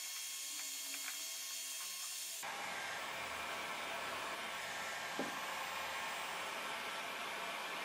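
Bosch UniversalHeat 600 heat gun running with a steady rush of air, blowing hot air onto a PVC pipe ring to soften it. The rush turns fuller about two and a half seconds in, and there is one light knock about five seconds in.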